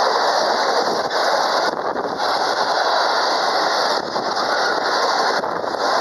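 Container freight train rolling past at close range: a steady rumble and rattle of wheels on rails, dipping briefly a few times.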